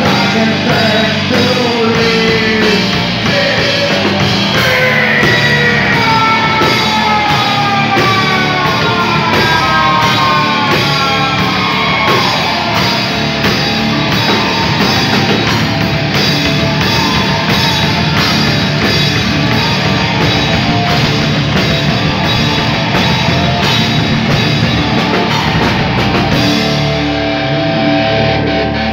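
Live heavy metal band playing loud: distorted electric guitar, bass guitar and drum kit with cymbals, with vocals. Long falling pitch slides are heard for several seconds early on. Near the end the drums and cymbals stop, leaving the guitar ringing.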